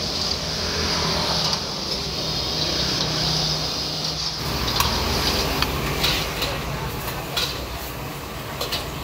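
Sauce bubbling and sizzling in a wok over a gas burner, a steady hiss that gives way about four seconds in to a few sharp clanks and scrapes of a spatula against the wok.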